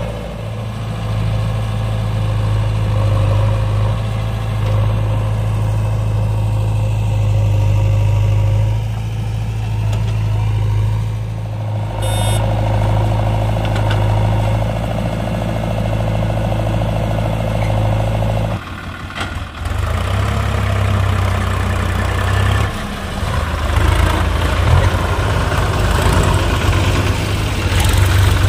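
Diesel engines of a JCB 3DX backhoe loader and farm tractors running: a steady, loud low drone. The drone changes character abruptly a little past two-thirds of the way through.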